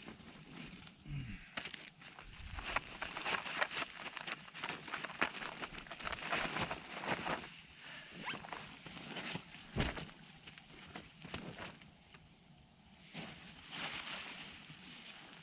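Irregular crinkling, crackling rustles of ice-stiffened nylon camping gear being handled and packed, in busy bursts with a short lull near the end.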